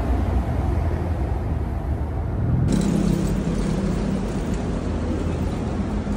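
Steady low rumble of road traffic on a city street, with a sudden change in the sound about two and a half seconds in.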